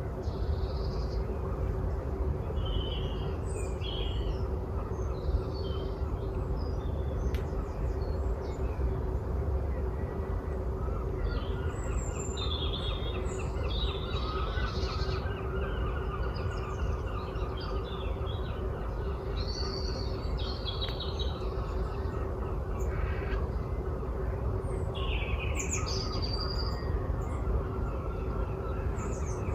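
Several songbirds calling and singing in woodland, with short high chirps scattered throughout and a rapid trill from about 12 to 16 seconds in. Underneath runs a steady low rumble with a constant faint hum.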